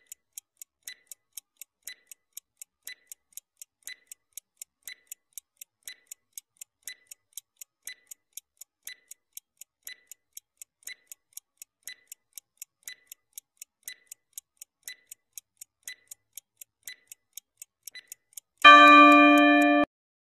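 Countdown-timer sound effect: a clock ticking steadily, about two ticks a second, ending near the end in a loud tone of about a second with several pitches at once, signalling that the time is up.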